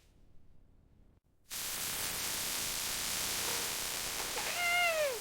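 A cat meows once near the end, a single call falling in pitch. A steady hiss starts suddenly about one and a half seconds in and runs under the meow.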